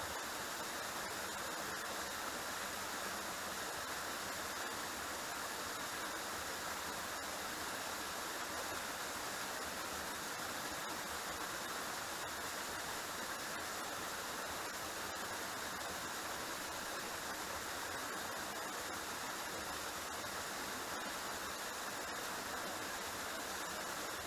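Waterfall rushing steadily, an even, unbroken sound of falling water.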